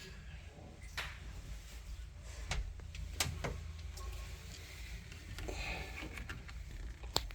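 Sharp clicks and knocks of parts being handled while working on a washing machine's drain pump, about five separate knocks over a steady low hum.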